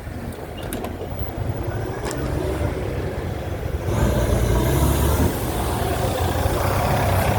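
City bus diesel engine running with a low rumble that grows louder about four seconds in. A faint high whine rises and falls just after that.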